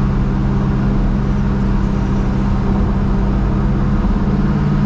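Crown Victoria Police Interceptor 4.6-litre V8 in a Ford F100 pickup running steadily while cruising, heard from inside the cab over road noise. The engine note shifts slightly about four seconds in.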